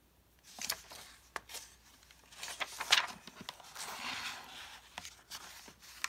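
Paper pages of a book being handled by hand: pages turned and a page folded down, with rustling and sliding paper and scattered small taps and clicks, the sharpest about three seconds in.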